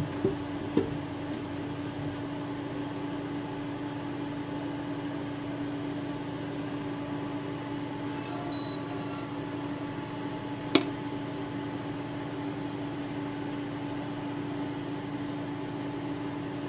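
Steady hum of a kitchen appliance running, with one low tone standing out above a fainter buzz. A single sharp click comes about eleven seconds in.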